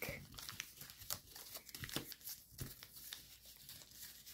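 Foil-backed origami paper crinkling and rustling as it is folded and creased by hand, a run of faint, irregular crackles.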